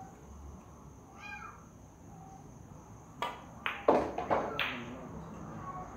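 Pool shot: the cue tip clicks against the cue ball, followed by a quick run of sharp clicks as the billiard balls collide and knock off the cushions, about three to four and a half seconds in.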